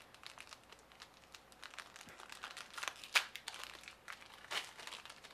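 Trading-card pack wrapper crinkling and tearing as gloved hands open a pack: a run of irregular crackles, the sharpest about three seconds in.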